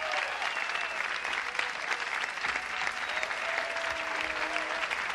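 Live audience applauding, a dense steady clapping with a few whistles over it.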